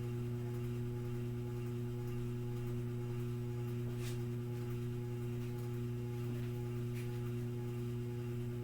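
Steady electric hum of a running fan motor: a low drone with two steady higher tones above it. A faint click about four seconds in.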